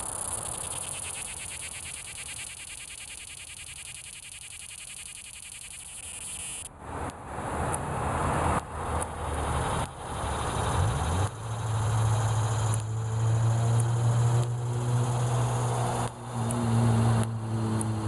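Annual cicada buzzing with a fast, even pulsing, ending abruptly about seven seconds in. After that some irregular knocks, then from about eleven seconds an engine's steady low hum becomes the loudest sound.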